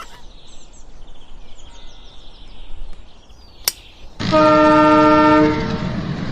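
A loud vehicle horn blast about four seconds in, held for about a second and a half, then a steady low engine rumble. Faint high chirps and a single click come before it.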